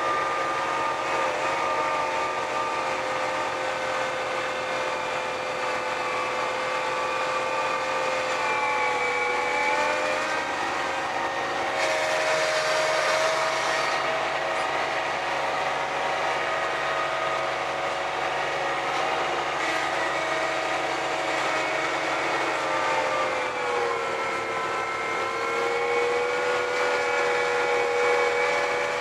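John Deere 1026R compact tractor and its front-mounted 47-inch snowblower running steadily while throwing snow, heard from inside the tractor's cab as a steady whine over the engine. The whine sags in pitch for a moment about three-quarters of the way through, and there is a brief louder hiss about twelve seconds in.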